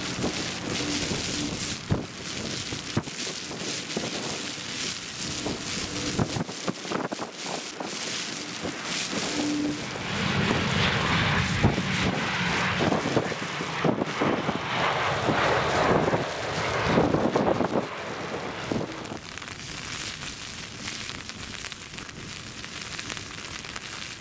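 Strong wind buffeting the microphone in heavy rain. About ten seconds in, the loud rush of a Boeing 737-800's twin CFM56 jet engines and its tyre spray rises as the airliner rolls out on the flooded runway after a crosswind landing, then dies away about eight seconds later.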